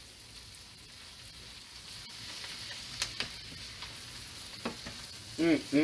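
Collard greens frying uncovered in bacon grease in a skillet, a steady sizzle, while a wooden spatula stirs them, with a few light clicks of the spatula against the pan.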